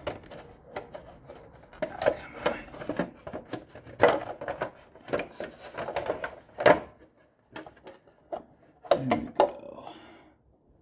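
Hard plastic shroud panels of an exercise bike being handled and worked loose: irregular clicks, knocks and clattering, with louder bursts of rattling about 4 s, 6.5 s and 9 s in.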